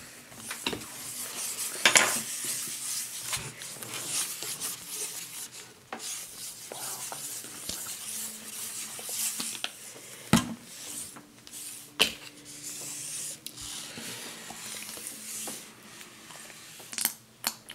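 Handling of plastic fingerpaint squeeze bottles over a foam paper plate: rubbing and squishing as paint is squeezed out, with a few sharp clicks and knocks of bottles and caps, the loudest a little past the middle.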